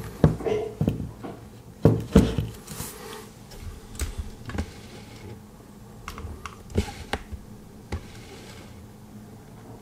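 Hands handling small objects: a scatter of sharp clicks and light knocks, the two loudest about two seconds in, growing sparser after the first few seconds.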